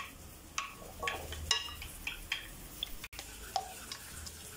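A metal spoon stirring a thick, wet paste in a glass dish, scraping and clinking irregularly against the glass, with a few brief ringing clinks.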